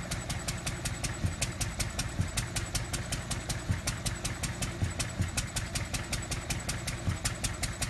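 Lister D single-cylinder stationary engine running steadily off load, its drive belt off, with an even beat of about five or six firing strokes a second.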